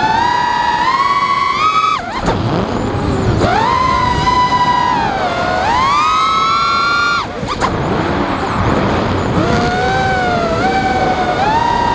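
Armattan Chameleon FPV quadcopter's brushless motors and propellers whining, heard through its onboard camera. The pitch rises and falls with the throttle. It drops sharply about two seconds in and again about seven seconds in, as the throttle is chopped, then climbs back up.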